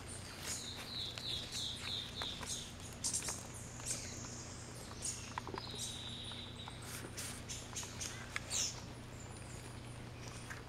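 Wild birds calling: a run of about seven short falling notes in the first few seconds, a held high whistle around six seconds in, and scattered short high chirps, over a faint steady low hum.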